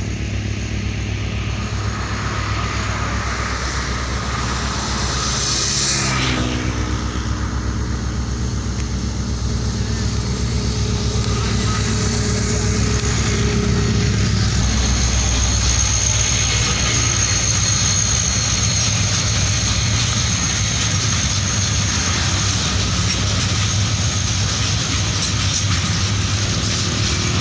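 Diesel-electric locomotive of a container freight train running as it comes up and passes, a steady low engine rumble, followed by the container wagons rolling over the rails, which grow a little louder about halfway through.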